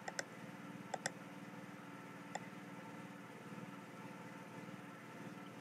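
Faint computer mouse clicks over a steady low hum: a quick pair at the start, another pair about a second in, and a single click a little over two seconds in.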